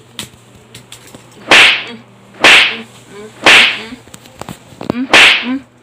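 Four loud, sharp whip-like cracks or smacks, the first three evenly about a second apart, the fourth after a longer gap; each dies away quickly.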